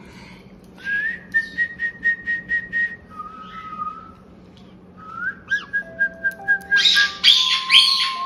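Background music: a whistled tune of long held notes over a light ticking beat, with lower sustained notes coming in and a few loud, sharp chirping notes near the end.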